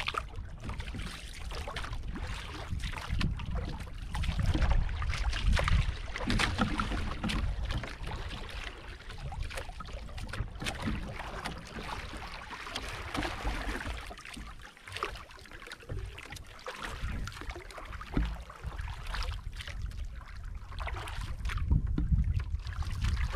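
Wooden paddle strokes splashing and water sloshing beside a small outrigger canoe, with wind buffeting the microphone.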